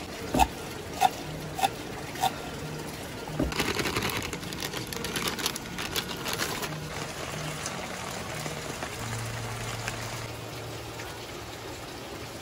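Pestle pounding spices in a shallow clay mortar: four sharp knocks about two-thirds of a second apart, followed by a few seconds of crackly scraping and rustling.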